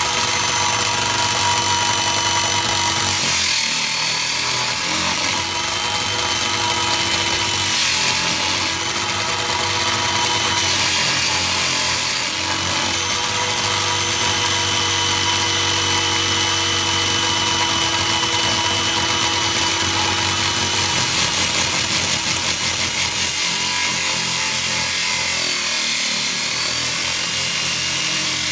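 Electric diamond core drill running steadily, its water-fed core bit grinding into a brick wall. A high motor whine sits over the grinding and dips in pitch and recovers a few times.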